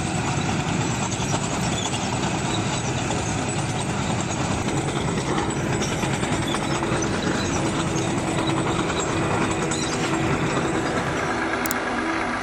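MAZ-543 heavy off-road truck's V12 diesel engine running steadily under load as the truck drives.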